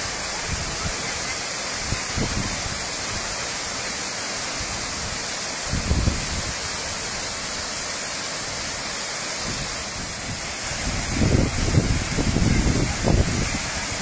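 Waterfall's steady rush of falling water, with low, gusty rumbles about six seconds in and again through the last few seconds.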